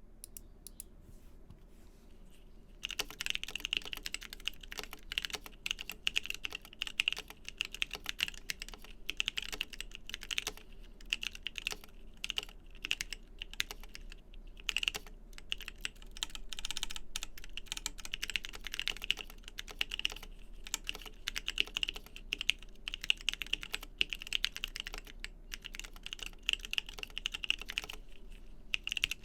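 Continuous typing on a custom 60% mechanical keyboard fitted with lubed TKC Kiwi 67g tactile switches and DSA-profile keycaps: a rapid, uneven run of key clacks. The first few seconds hold only a few light clicks before steady typing starts.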